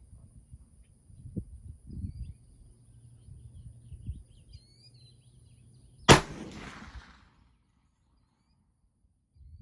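A single rifle shot about six seconds in, a sharp crack with an echo trailing off over about a second. Before it there is a low rumble and a few soft thumps.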